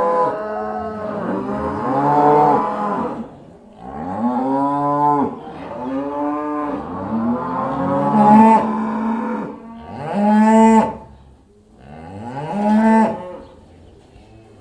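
Several cows mooing in turn, long calls that rise and fall in pitch, some of them overlapping, about six or seven in all. The last call ends about a second before the close.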